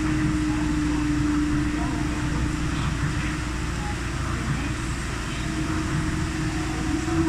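Yui Rail monorail car running between stations, heard from inside: a steady rumble from the running gear with a steady motor hum that fades about two seconds in and comes back near the end.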